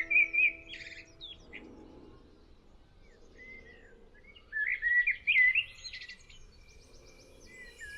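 A bird singing warbling, quickly varied whistled phrases in two bouts, one at the start and another about halfway through, with quieter gaps between.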